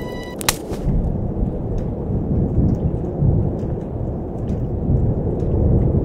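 Low rolling rumble of thunder with rain, plus faint scattered ticks. A sharp click about half a second in, as the music cuts off.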